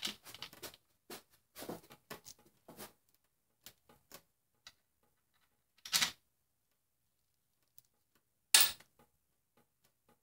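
Metal-on-metal clicks and clinks of steel bolts and a socket tool being handled and started in the aluminium case of a VW 09G automatic transmission: a quick run of small clicks at first, a louder clink about six seconds in, and the sharpest clack a little later.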